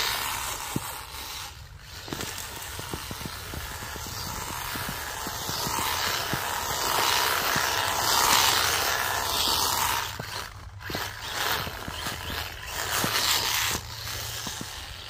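Kyosho Sand Master 2.0 RC buggy's brushed electric motor and gearbox running as it churns through slushy snow, the sound rising and falling with a couple of brief drops. The gearbox is loud and chattery, though the owner found nothing wrong inside it.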